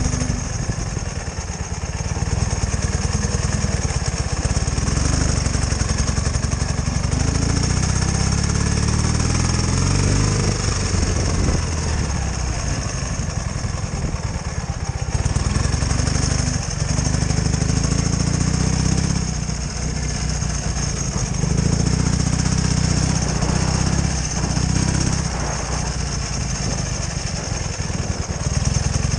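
Ural sidecar motorcycle's flat-twin engine running under way over rough ground, its revs rising and falling a few times as the rider works the throttle.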